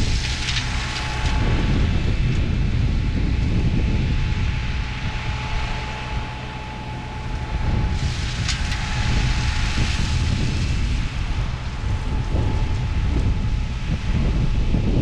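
Wind buffeting the microphone in an uneven low rumble, over the drone of a distant land-clearing machine with a faint steady whine that fades out about ten seconds in.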